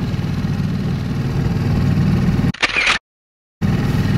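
A small yacht's motor running steadily under way, a low even throb. About two and a half seconds in, a brief rustling burst breaks in and the sound cuts out completely for about half a second before the motor resumes.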